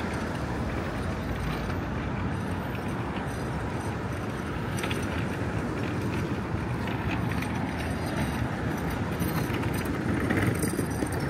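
Manhattan street ambience: a steady rumble of road traffic that swells briefly about ten seconds in, as a vehicle passes close by.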